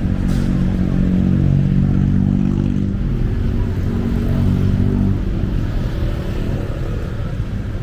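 City street traffic, with a vehicle engine running close by at a steady pitch that fades out about five seconds in.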